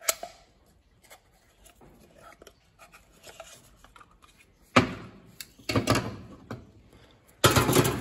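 Old cartridge oil filter element being worked off its plastic housing cap with long-nose pliers: faint scraping and clicking, then a few loud knocks and clatters in the second half as the parts and pliers are set down on the workbench.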